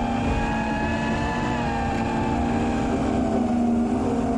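FPV quadcopter's brushless motors whining in flight, several close pitches drifting slowly up and down, over wind rumble on the onboard microphone.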